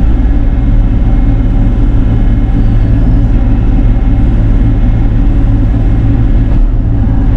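Bobcat E42 R2 mini excavator's diesel engine running steadily at working speed, a loud, even low drone.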